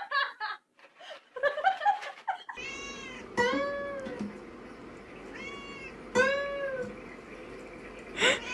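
Cat meowing loudly about four times, long calls that rise and fall in pitch, over an acoustic guitar being strummed. Shorter, choppy sounds come before them, in the first two seconds.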